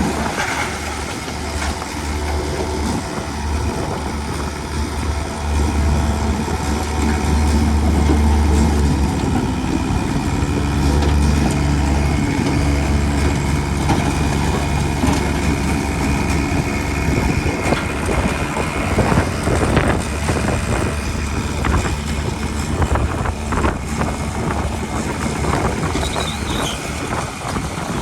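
Heavy diesel construction machinery, a dump truck or bulldozer, running with a deep steady rumble that swells for several seconds early on. From about two-thirds of the way in, irregular clattering knocks, typical of stone and steel tracks, run over it.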